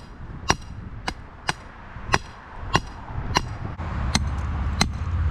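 Steady, even hammer strikes on metal, each a sharp ringing clank, about one every two-thirds of a second. A low engine rumble comes up under them about four seconds in.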